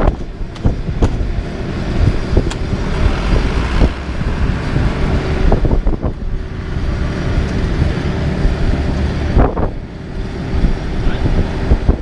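Diesel engines of a dump truck and a LeeBoy 8515B asphalt paver running steadily as the truck tips asphalt into the paver's hopper, with occasional knocks and wind buffeting the microphone.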